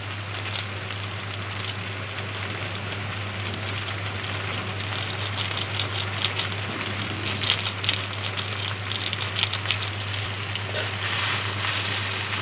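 Vegetable pasta sizzling in a steel kadai as it is stirred, a steady frying hiss with scattered clicks and scrapes of the spatula against the pan, thickest in the middle. A steady low hum runs underneath.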